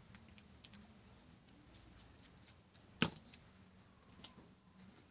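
Light clicks and small handling noises as the metal plug on a microphone cable is worked open with a small screwdriver, with one sharper click about three seconds in.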